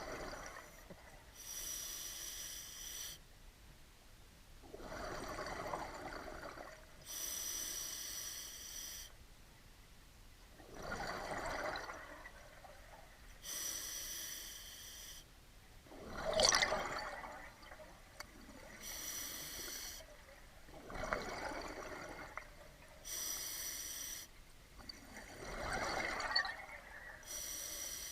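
Scuba diver breathing through a regulator underwater: a hissing inhalation through the demand valve alternates with a bubbling exhalation, about one full breath every five seconds.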